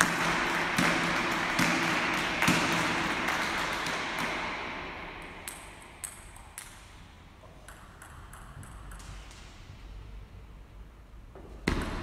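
Table tennis ball giving a few light, sparse ticks on the table between points, under a broad wash of hall noise that fades away over the first five seconds. Near the end comes a louder, sharper knock as play starts again.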